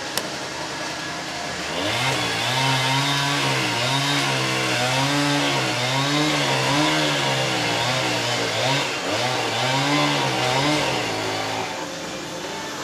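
Two-stroke chainsaw cutting, its engine pitch rising and dipping over and over, about once a second, as the chain bites into wood; it starts about two seconds in and stops shortly before the end. A single sharp click just at the start.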